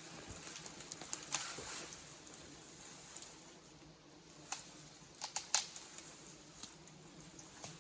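Brush and branches rustling and crackling as they are handled, with a few sharp twig snaps about four and a half and five and a half seconds in.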